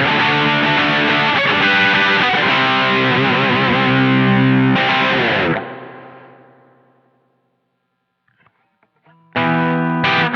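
Electric guitar played through an Electro-Harmonix Soul POG octave and overdrive pedal: sustained chords with added octave tones ring out, then fade to silence about five to seven seconds in. A few faint string clicks follow, and playing resumes near the end.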